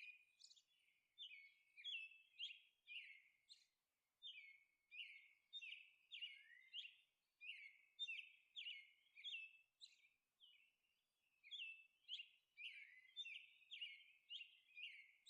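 Faint bird chirping: short, repeated downward-sliding chirps, about two a second, with brief pauses.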